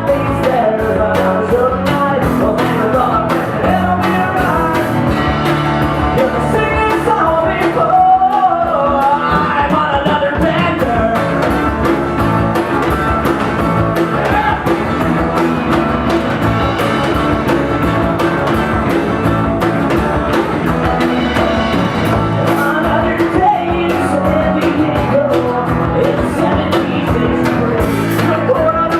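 Live acoustic pop-punk song: strummed acoustic guitar with a voice singing over it, played through a loud venue sound system.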